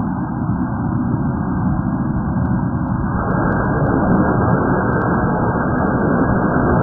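Loud, steady, muffled rumbling noise with no clear pitch. About three seconds in it thickens and becomes fuller, and faint ticks sound over it.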